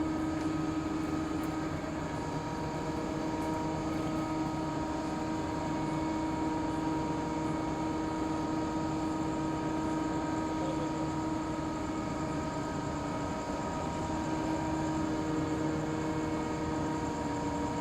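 XCMG 500-tonne truck crane running steadily: a constant engine drone with a steady, even whine that holds one pitch throughout.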